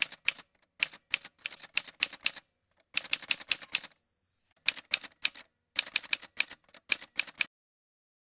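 Typewriter keys clacking in quick runs of strikes with short pauses between them, and a single bell ring about three and a half seconds in that fades over about a second.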